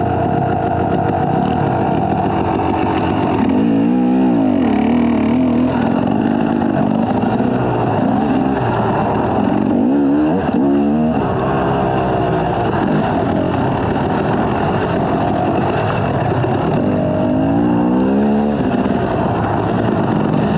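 Dirt bike engine under way, revving up and dropping back several times as the throttle is worked: about four seconds in, around ten to eleven seconds, and again near the end.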